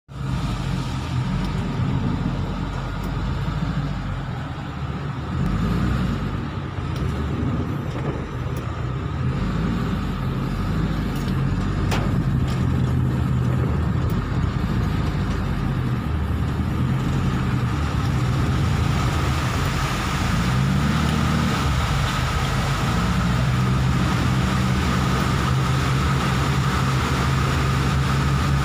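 Car engine running, heard from inside the cabin, with a hiss of rain and water under the tyres that grows louder about halfway through as the car drives through floodwater.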